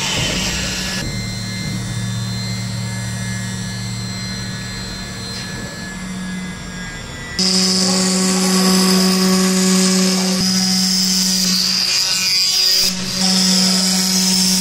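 CNC wood-carving router spindle running at a steady pitch with the hiss of its bit cutting wood. The sound drops abruptly about a second in and jumps back louder and brighter about halfway through.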